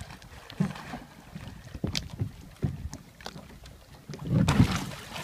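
Plastic kayak knocking and bumping against a wooden dock as a child climbs in from the edge. Near the end comes a loud splash as the kayak tips over.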